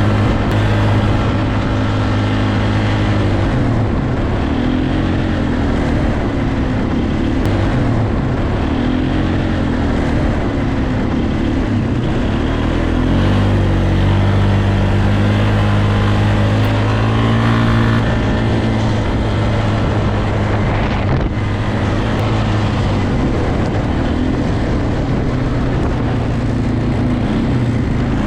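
Polaris ATV engine running, its pitch rising and falling with the throttle for several seconds, then holding steady.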